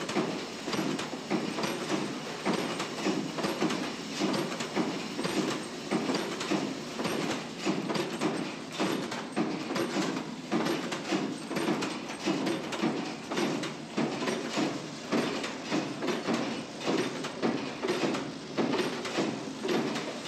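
Hex bolt trimming machine running, a steady metallic clatter and clicking with a regular beat of about two to three strokes a second.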